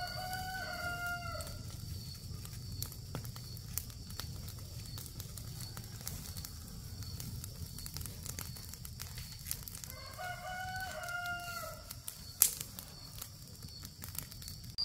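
A rooster crows twice, about ten seconds apart, each crow a short pitched call under two seconds long. Light scattered clicks come in between, and one sharp knock, the loudest sound, falls a little after the second crow.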